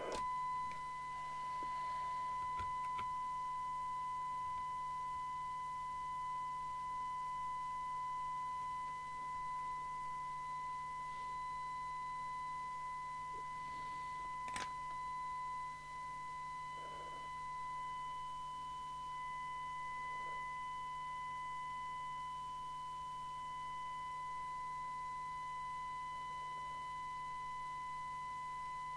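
Steady test tone from an Amstrad CB901 FM CB radio's loudspeaker as it receives and demodulates a test signal during receiver alignment, the tone slightly lopsided rather than a pure sine wave. A single sharp click about halfway through.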